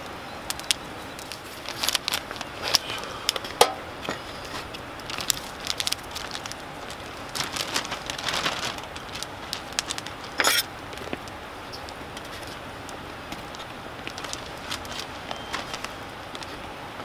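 Wood campfire crackling, with scattered rustles and light clicks of food and wrapping being handled on a slatted aluminium camp table. A sharper burst about ten and a half seconds in is the loudest sound.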